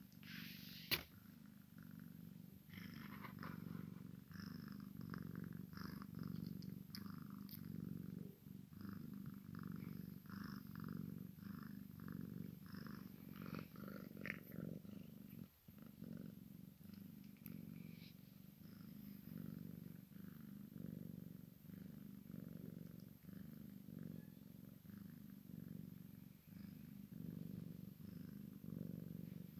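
Cat purring: a steady, continuous low rumble, with a brief click about a second in.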